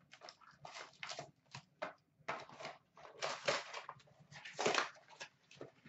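Cardboard hobby box and its foil-wrapped trading-card packs being handled: an irregular string of rustles, scrapes and light knocks as the box is opened and the packs lifted out and set down.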